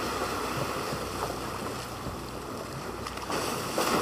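Steady wind and sea noise heard from a boat on open water, swelling briefly near the end.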